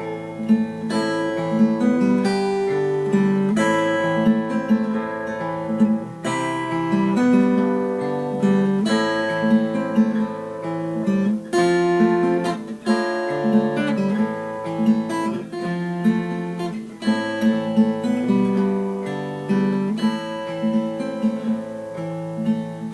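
Acoustic guitar played alone, strummed and picked chords in a steady rhythm: an instrumental passage of a folk song after the singing has stopped.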